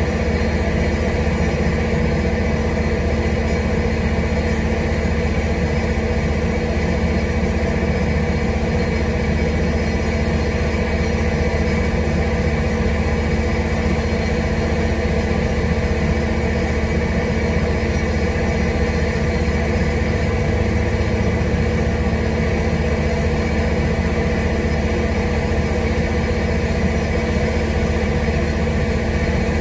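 A steady, unchanging mechanical hum with several fixed tones, over an even hiss.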